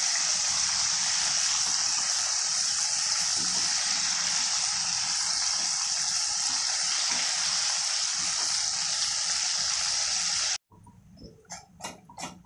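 Chicken pieces deep-frying in hot oil in a wok, a steady sizzle with the oil bubbling hard. It cuts off abruptly about ten and a half seconds in, and a much quieter run of short, evenly spaced sounds follows.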